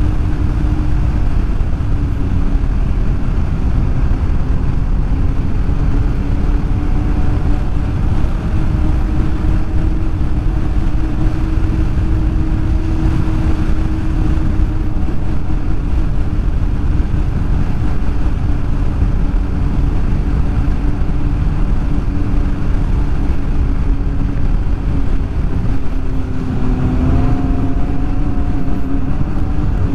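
Snowmobile engine running steadily at trail speed over a heavy low rumble, its pitch wavering slightly. About 26 seconds in the pitch dips and then climbs again as the throttle changes.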